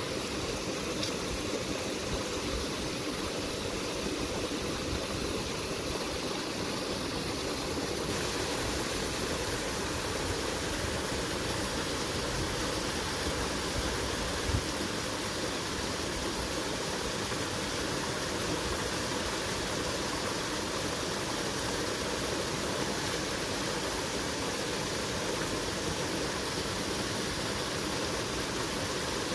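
Small waterfall and shallow stream running, a steady rush of water that grows slightly louder about eight seconds in, with a low uneven rumble underneath.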